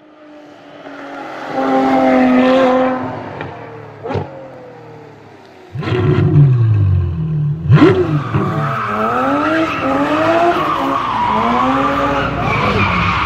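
Intro sound effects, a rising swell and a sharp whoosh, then a sudden loud hit about six seconds in. A car engine follows, revving up and down over and over, with tyres squealing.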